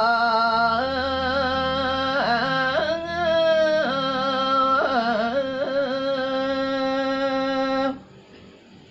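Solo voice singing a Balinese geguritan in the Sinom metre, unaccompanied: long held notes decorated with wavering turns and pitch bends. The phrase ends about eight seconds in.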